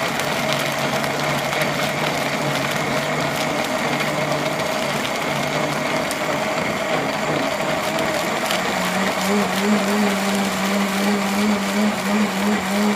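Countertop blender running at high speed, churning soaked Irish moss (sea moss) and water on its way to becoming a gel: a loud, steady motor whir with sloshing liquid. About two-thirds of the way through the motor's hum changes pitch and begins to waver.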